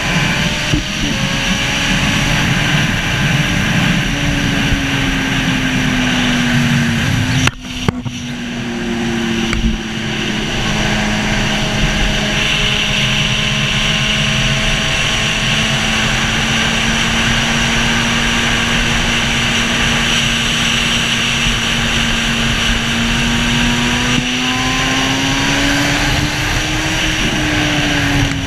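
Racing sidecar outfit's engine running at speed around a track, heard from onboard with a heavy rush of wind and road noise. The engine note holds fairly steady and breaks off briefly about seven and a half seconds in. Near the end it climbs and then falls away again.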